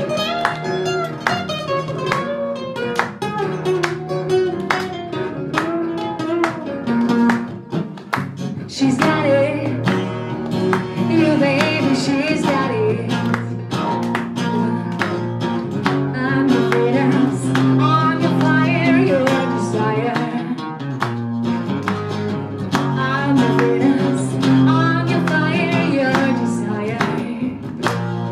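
Steel-string acoustic guitar strummed and picked, with a woman singing over it from about nine seconds in.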